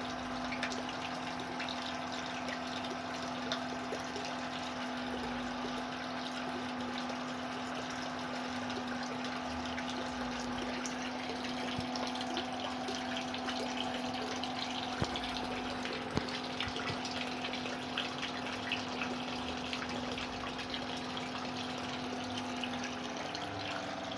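Steady running-water noise in a fry tank with the constant low hum of a water pump, and a few small ticks and splashes. The hum shifts near the end.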